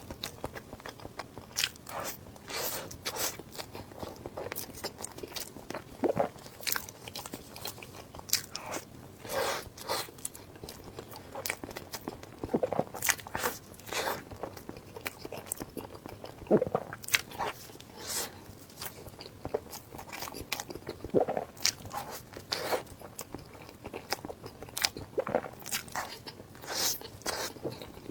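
Close-miked eating: repeated bites and crunchy chewing, with irregular crackles and smacks throughout.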